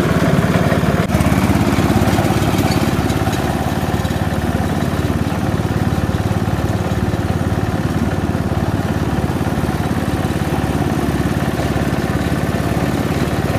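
Petrol engine of a Stiga front-deck ride-on lawn mower running steadily under cutting load, with a brief dip in level about a second in.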